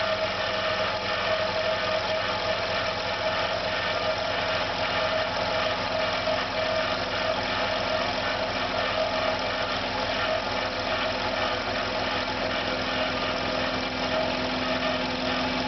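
Electric air compressor running continuously with a fast, even pulsing, not sounding round and beginning to vibrate: its motor, which smells of burnt plastic, the owner believes to be damaged.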